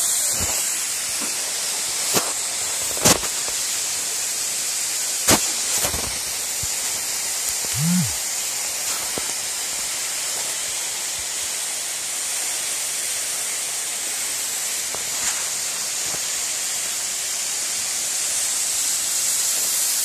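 Steady rushing hiss of a tall waterfall plunging into its pool, heard up close from behind the falling water. A few short sharp clicks sound in the first six seconds.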